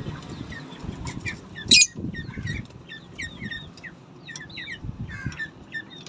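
Small cage birds, lovebirds and budgerigars, chirping in quick short calls several times a second, with a sharp click just before two seconds in and a few soft low thuds.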